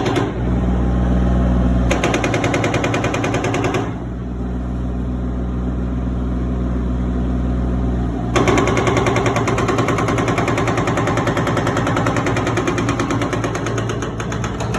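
Hydraulic demolition breaker hammering concrete in rapid, even blows over the steady hum of a heavy machine's engine. The blows come in a short run about two seconds in, then a longer run from about eight seconds in.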